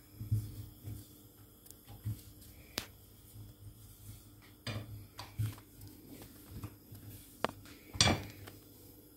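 Kitchen clatter: scattered light knocks and clinks of a frying pan on a gas hob, with a louder knock near the end.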